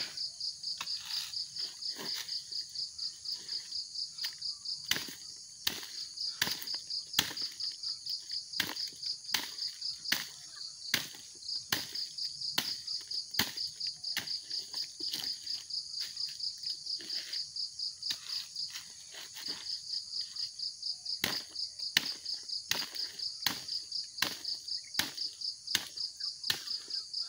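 Repeated blows of a hooked metal hand tool striking oil palm fruit bunches, about one or two knocks a second with a few short pauses, knocking the loose fruitlets off the rotting, overripe bunches. A steady, pulsing insect trill runs underneath.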